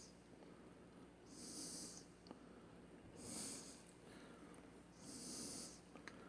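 Quiet nose breathing close to the microphone: three soft hissy breaths, about one every two seconds, with a couple of faint clicks in between.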